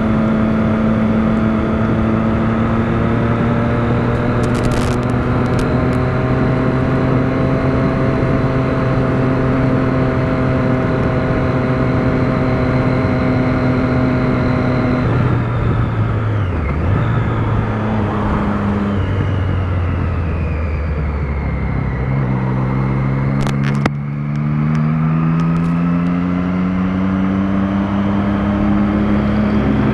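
Motorcycle engine running at cruising speed, heard from the rider's position with wind rush over the microphone. About halfway through the engine note falls away as the throttle is eased. A few seconds later it climbs again under acceleration, with a brief break near the end that sounds like a gear change.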